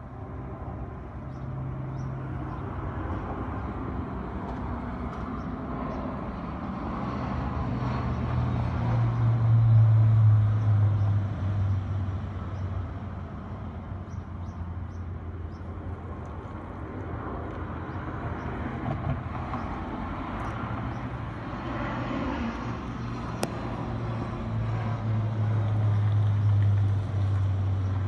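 Lincoln Corsair SUV's engine running as the car is manoeuvred at low speed, a steady low hum that swells about a third of the way in and again near the end.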